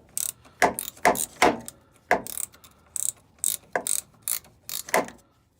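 Socket ratchet clicking as it loosens the 11/16 drain nut on a diesel truck's fuel filter housing to drain the fuel: a run of sharp clicks at uneven spacing.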